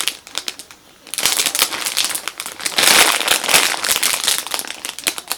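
Plastic packaging crinkling and crackling as a foam squishy toy is handled and squeezed, busiest from about a second in.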